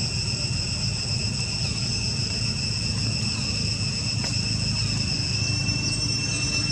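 Steady, high-pitched insect chorus holding several unchanging tones, over a low steady rumble of background noise.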